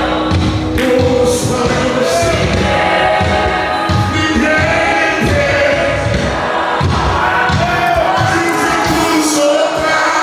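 Worship music: several voices singing together over a steady beat.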